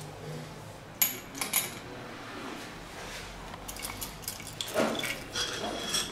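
Metal parts clinking and rattling as they are handled during scooter engine repair work. Two sharp clinks come about a second in, and a run of lighter clinks builds to a louder knock and rattle near the end.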